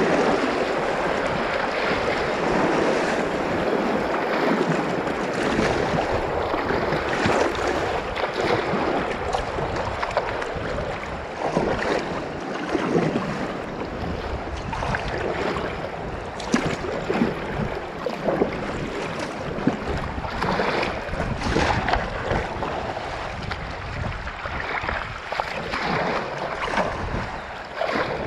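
Whitewater rushing past a kayak's hull, with irregular splashes from paddle strokes and water breaking over the bow, more frequent in the second half.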